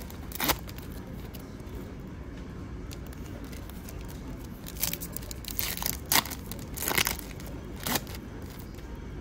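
Foil-lined Pokémon card booster pack being handled and torn open. A brief crinkle comes near the start, then a few short rips and crinkles in the second half as the wrapper is pulled apart.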